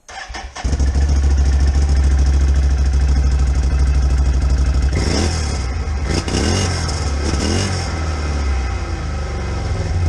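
Can-Am Outlander ATV engine on its stock exhaust, cranked by the starter and catching within about a second, then idling steadily. The throttle is revved a few times in the middle.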